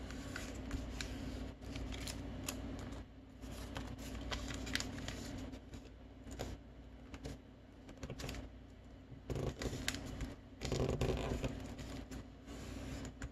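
A sheet of coloured origami paper being folded and creased by hand on a table: crisp rustling and crinkling with short sharp ticks as folds are pressed, and louder handling about two-thirds of the way through.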